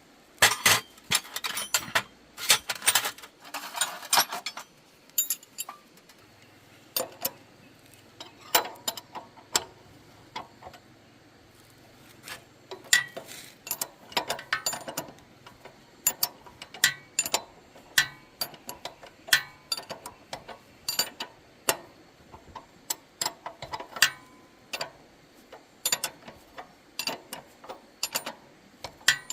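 Irregular sharp metallic clicks and clinks of hand tools on motorbike wheel parts. There is a dense clatter in the first few seconds, then single clicks about every half-second to a second.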